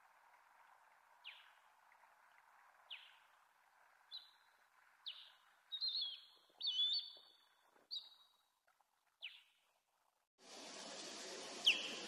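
Osprey calling: a string of short, high, sharply falling notes about a second apart, several run together in the middle, over a faint steady wind rush. About ten seconds in, loud wind noise on the microphone sets in abruptly, with one more call through it.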